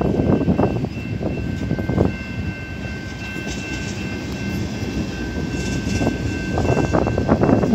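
Freight train cars rolling past at speed: a steady rumble with bursts of clacking from the wheels, dipping a little in the middle, and a thin steady high whine above it.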